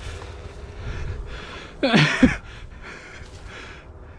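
Rustling and trampling through tall dry grass with camera handling, and one short call about two seconds in that falls in pitch.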